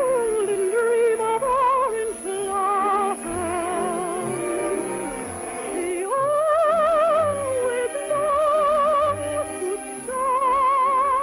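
A soprano singing a slow operetta melody with wide vibrato over orchestral accompaniment, holding a long note a little past the middle.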